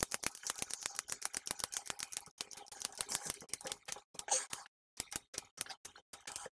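Handheld spring grip trainer being squeezed over and over, giving a fast run of sharp plastic clicks, several a second, that thins out into sparser clicks with short pauses after about two and a half seconds.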